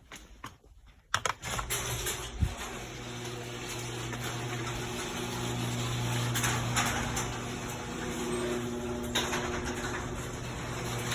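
Electric garage door opener running as it closes the door: a click, then about a second in the motor starts with a steady hum and rattle of the drive that continues.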